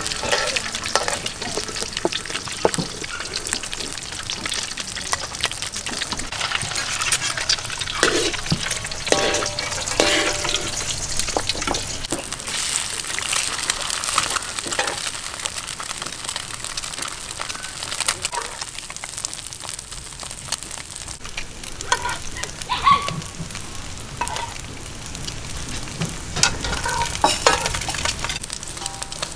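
Duck eggs frying in hot oil, a steady sizzle and crackle, with metal utensils scraping and tapping against the pan now and then.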